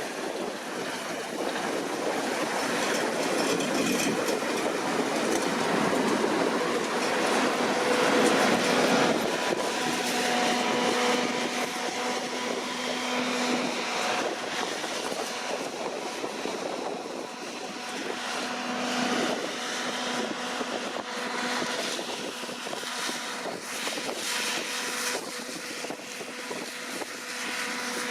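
Deutz-Fahr C9306TS combine harvester at work, a dense, steady machinery noise that is loudest about eight seconds in. A steady whine comes and goes through it from about ten seconds on.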